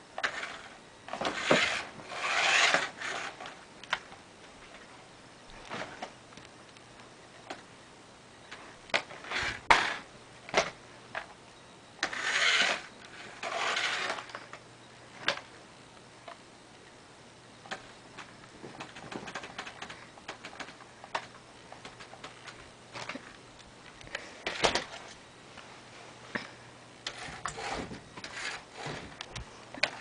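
Toy remote-control car driving in short spurts across carpet and a blanket: three longer bursts of rubbing noise, with scattered knocks in between.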